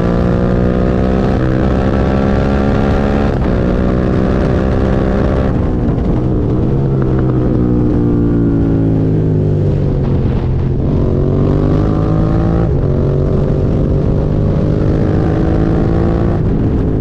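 Suzuki SV650's V-twin engine running hard on the move: its pitch climbs, drops sharply at each upshift, falls away for a few seconds around the middle as the bike slows, then climbs again through more gear changes.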